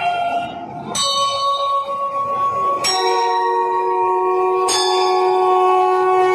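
Slow bell chimes, one new note struck about every two seconds and left ringing, each at a different pitch so that they make a slow tune.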